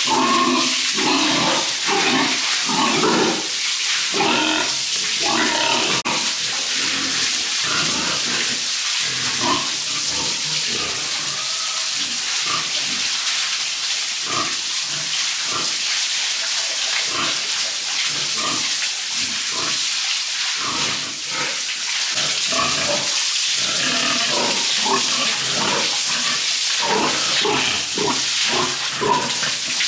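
Pigs grunting and squealing in many short bursts over a steady hiss of running water.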